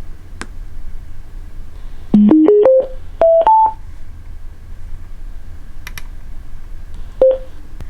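Portable Bluetooth speaker sounding its electronic start-up chime: a quick rising run of short beeps about two seconds in, followed by two higher notes. Near the end comes a single short beep, typical of the speaker confirming a connection. A few faint clicks are heard in between.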